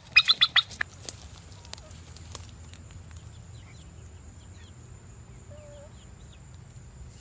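A turkey hen's quick run of loud, evenly repeated calls, about six a second, breaks off within the first second. After it come a few faint, high chirps of small birds over a low steady hum.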